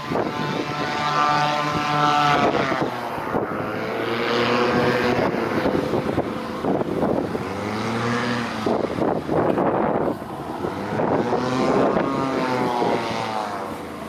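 Christy 7186 FC hovercraft running, the drone of its 160 hp thrust engine and ducted propeller rising and falling in pitch several times. Short rushes of noise cut across it now and then.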